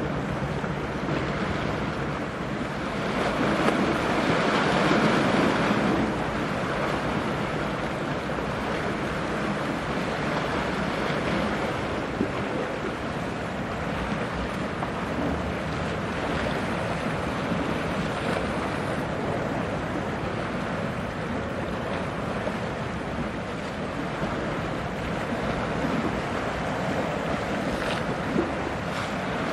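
Steady noise of wind on the microphone and choppy sea water, swelling in a gust about three to six seconds in.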